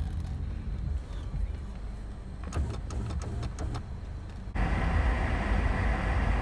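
Car engine idling, a steady low rumble heard from inside the cabin, with a few light clicks. About four and a half seconds in, it gives way abruptly to a louder, hissier steady noise with a thin high whine.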